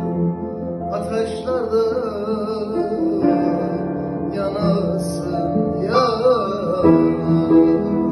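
Instrumental passage of a Turkish song: plucked string instruments playing steady notes, with a wavering, ornamented melody line rising over them several times.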